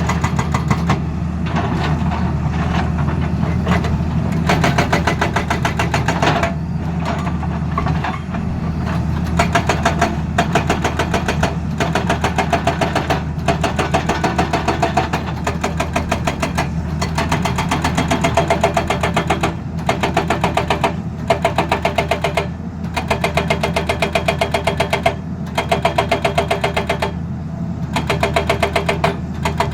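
Excavator-mounted hydraulic breaker hammering in rapid, evenly spaced blows, in runs of a few seconds with short pauses, over the excavator's engine running steadily.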